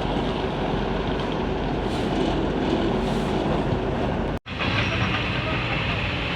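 Heavy machinery running with a steady mechanical rumble and clatter. The sound breaks off abruptly for an instant about four and a half seconds in, then carries on.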